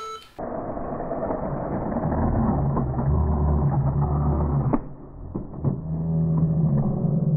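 Electric slot cars running on the track, a muffled low steady hum from their motors. A sharp click comes about five seconds in, the hum briefly drops away, and it picks up again a second later.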